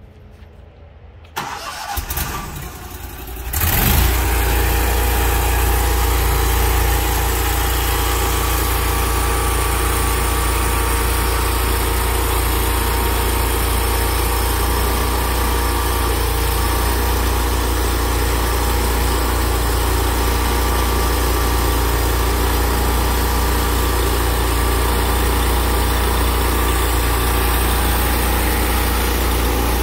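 Engine of a portable band sawmill being started: cranking begins about a second and a half in, catches about four seconds in, then runs steadily.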